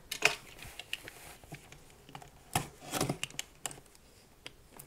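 Cardboard retail box being handled and opened: scattered taps, scrapes and rustles of cardboard and packaging at an irregular pace.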